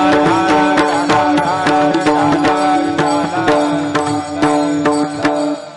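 Kirtan devotional music: a long held note with small hand cymbals striking in a quick, steady rhythm over it. The held note breaks off near the end.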